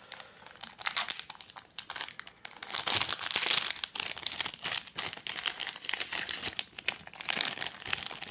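Plastic wrapper of a Choki Choki chocolate stick pack crinkling as it is handled and torn open by hand, in irregular crackles, loudest about three seconds in and again near the end.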